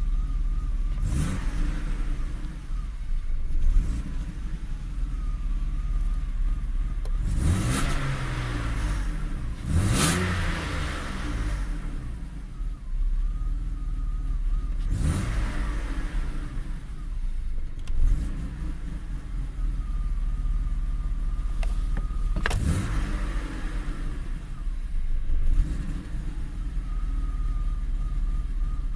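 BMW E34's M50B25 2.5-litre straight-six engine running at idle and blipped repeatedly, each time revving up briefly and dropping back. The engine has a rough, shaking idle that stalls.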